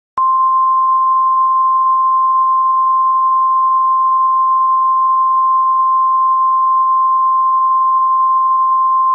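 Emergency Alert System attention signal: one steady single-pitch alarm tone that switches on a moment in and holds unbroken, announcing the emergency message to follow.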